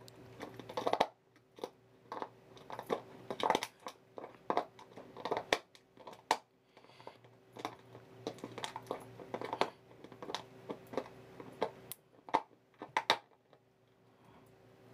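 A husky chewing on the cap and neck of a plastic soda bottle, working the cap off: irregular crackling and clicking of plastic under its teeth, easing off near the end.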